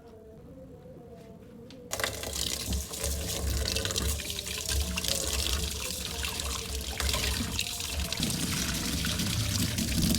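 Water pouring, starting suddenly about two seconds in, after a faint steady hum.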